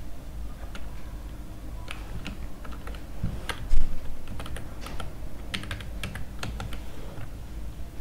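Typing on a computer keyboard: scattered, irregular key clicks in short runs, with one louder knock a little under four seconds in, over a faint low steady hum.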